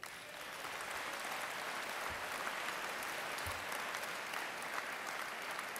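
Conference audience applauding: a steady wash of clapping that starts suddenly and eases slightly near the end.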